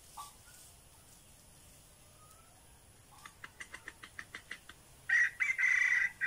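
A rooster crows once, short and high-pitched, starting about five seconds in. Just before the crow comes a quick run of about a dozen short, sharp notes.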